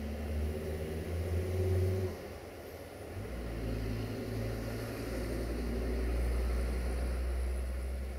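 A vehicle engine running with a low, steady drone. It drops away about two seconds in and picks up again at a different pitch about a second later.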